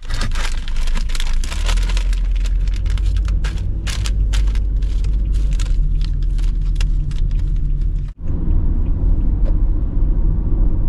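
Crinkling of a foil snack wrapper being handled, irregular crackles over a steady low rumble from the car's running engine. A brief dropout comes about eight seconds in, and after it mostly the rumble is left.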